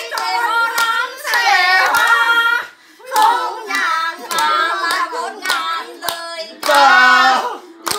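Women singing, with hands clapping along and a short break about three seconds in.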